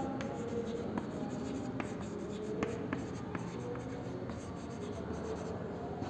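Chalk writing on a chalkboard: faint scratching with scattered light taps as words are written out.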